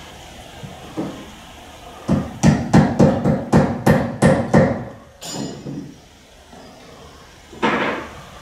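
A quick series of about nine sharp knocks, roughly four a second, like hammering, starting about two seconds in, with a further louder knock or thud near the end.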